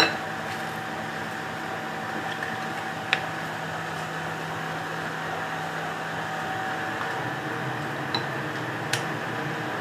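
Steady mechanical room hum with a few light, sharp clicks of kitchen utensils, about four, as filling is spooned onto burger buns.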